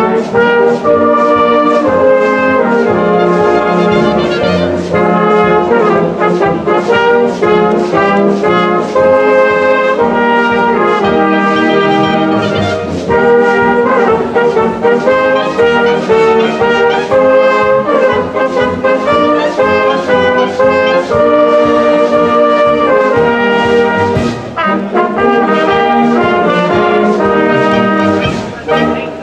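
Wind band playing together, with saxophones, clarinets and brass including a flugelhorn. The music runs loud and steady, easing briefly between phrases a few times.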